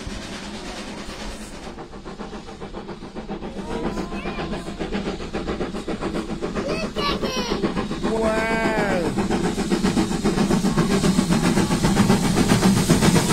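Steam locomotive approaching along the track, its running noise growing steadily louder. A small child's voice calls out "wow" a few times over it.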